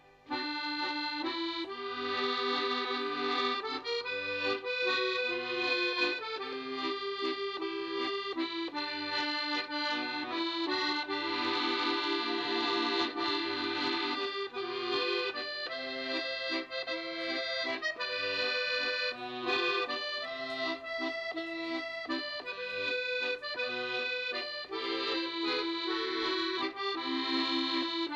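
Accordion music: a tune of held chords and shifting melody notes, starting just after a brief gap at the very beginning.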